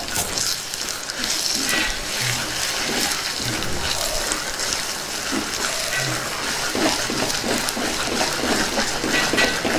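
Grated bottle gourd halwa sizzling in ghee in a clay pot as a spatula stirs and scrapes through it: a steady hiss with irregular scraping.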